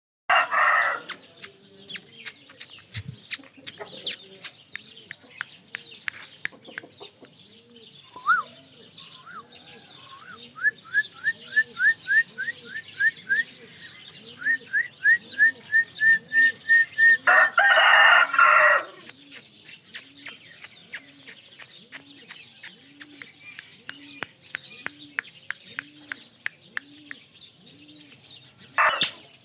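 Ringneck parrot calling: loud harsh screeches near the start, about two-thirds of the way in and near the end, with a long run of quick rising chirps, about three a second, in between.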